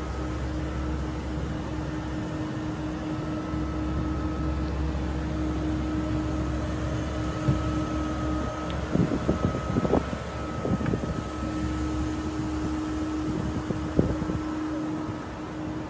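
A Mercedes-Benz 600 SEL's 6.0-litre V12 idling steadily, a constant low drone. A few short knocks and clicks fall in the middle, and a sharp click comes near the end.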